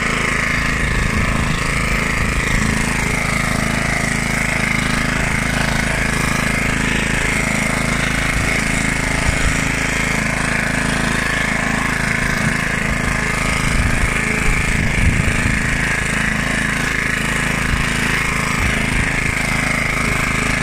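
1976 Hayterette rotary lawnmower's 3.5 hp Briggs & Stratton side-valve engine running steadily as the mower cuts grass.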